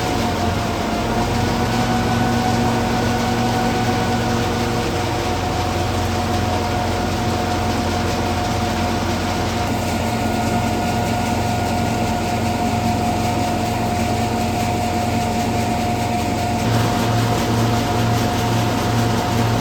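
Hazelnut threshing machine (patoz) running steadily, a constant mechanical drone with a steady whine over it.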